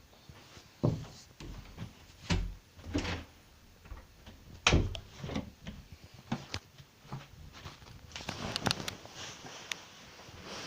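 A series of irregular knocks and bumps indoors, about half a dozen spread over several seconds, then a quick cluster of sharp clicks near the end.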